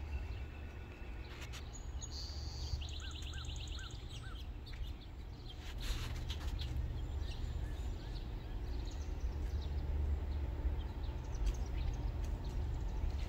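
Birds calling about two to four seconds in, first a quick run of high chirps and then four short notes, over a steady low rumble.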